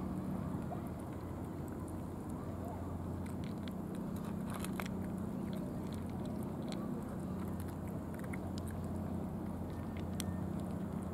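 Cats chewing and licking wet food from foam trays, heard as scattered small clicks, over a steady low background rumble.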